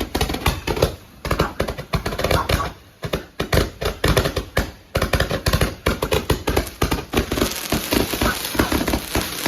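A 'rocket launcher' firework firing a rapid, irregular run of pops and bangs, several a second, thickening into dense crackling near the end.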